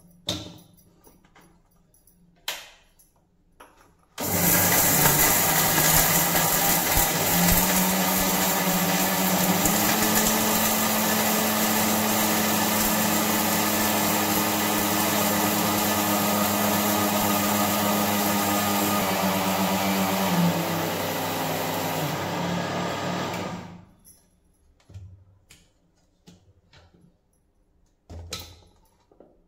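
Electric mixer grinder with a steel jar grinding roasted whole spices into masala powder. The motor starts about four seconds in and runs loud and steady for about nineteen seconds, its hum stepping up slightly in pitch twice early on, then winds down. A few knocks from the jar being set on and taken off come before and after.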